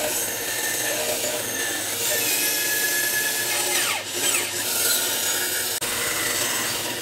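Electric saw running and cutting through a wooden plank along a curved line, a steady rasping with faint whistling overtones.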